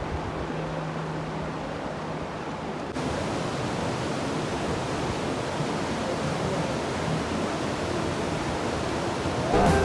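Steady rushing of a waterfall, getting brighter and a little louder about three seconds in.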